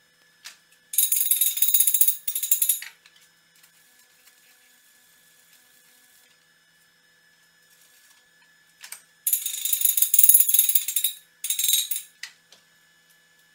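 Stick-welding arc crackling in short runs as welds are laid on a square steel tube: one run of about two seconds starting a second in, then two more runs late on. A few single clicks come between them as the electrode is struck.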